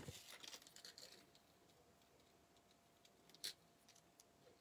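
Near silence with faint handling sounds: a light knock and a few soft clicks and rustles in the first second, then one sharper click about three and a half seconds in, as jewelry is picked up and handled.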